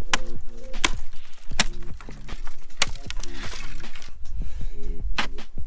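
Hatchet chopping into dead speckled alder stems: a series of sharp strikes at uneven intervals, several in the first three seconds and another near the end, over background music.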